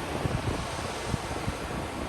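Ocean surf washing steadily on a beach, with wind gusting against the microphone in brief low rumbles.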